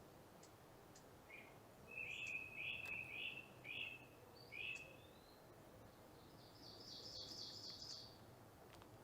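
Small songbirds calling: a quick series of short chirps starting about a second in, then a fast, higher trill lasting about a second and a half near the end, over faint background hiss.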